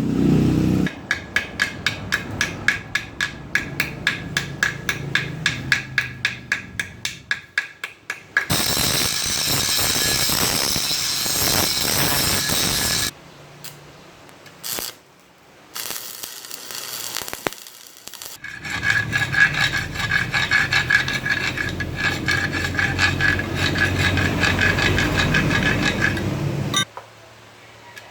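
Metal being worked by hand on a cracked water pump head: quick scraping or filing strokes, about three to four a second, then several seconds of dense hiss and a longer stretch of rough, uneven scraping noise.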